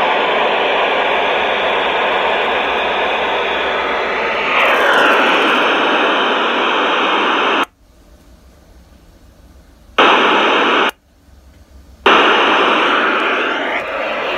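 Icom IC-3200A dual-band transceiver's speaker giving a steady static hiss. The hiss cuts off suddenly with a faint click twice, each time for one to two seconds, and then comes back, as the rear speaker switch is flicked off and on.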